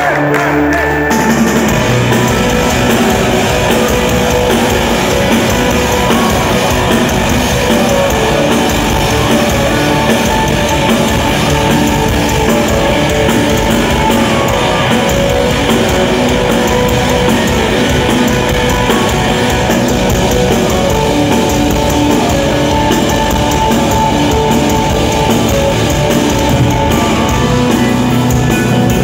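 Gothenburg death metal band playing live, with distorted electric guitars, bass and drum kit, loud through a phone's microphone. The full band comes in about a second and a half in.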